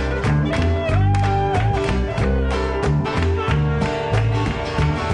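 Live acoustic band playing an instrumental passage: two nylon-string Spanish guitars strummed in a steady rhythm over double bass and light percussion, with a saxophone melody line.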